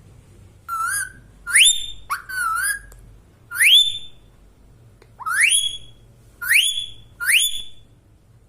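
Indian ringneck parrot whistling: about seven short, loud whistles, most of them quick rising swoops up to a high note, with one wavering call about two seconds in.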